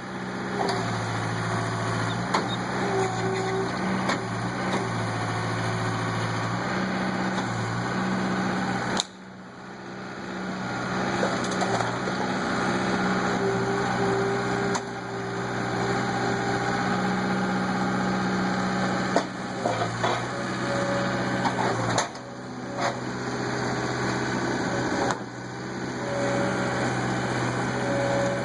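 Skid steer engine running under load while its backhoe attachment digs, the engine note shifting as the hydraulics work. The sound dips sharply for a moment about nine seconds in, and there are a few short knocks along the way.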